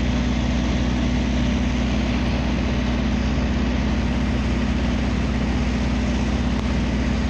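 Heavy engine idling steadily, a constant low drone.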